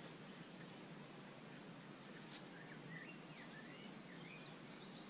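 Faint outdoor background hiss with a small bird chirping a handful of short, quick notes near the middle.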